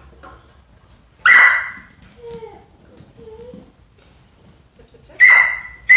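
Border collie barking sharply three times: once about a second in, then twice in quick succession near the end, with faint whining between the barks.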